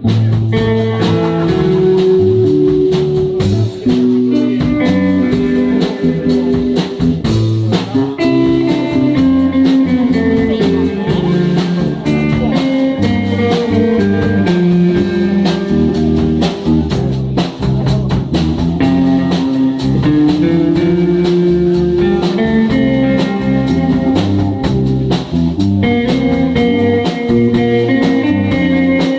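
Live guitar-led music in a blues style, played continuously and loudly.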